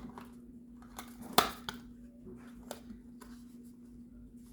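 Small products and packaging being handled: scattered rustles and light clicks, with one sharp clack about a second and a half in, over a steady low hum.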